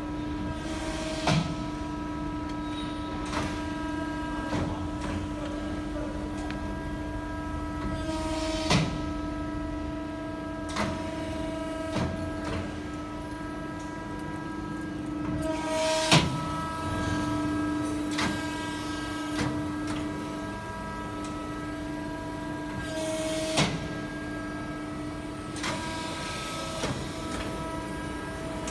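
Hydraulic press brake running, with a steady humming whine from its pump unit. Sharp mechanical clicks and knocks come every few seconds, about ten in all, the loudest about two-thirds of the way through.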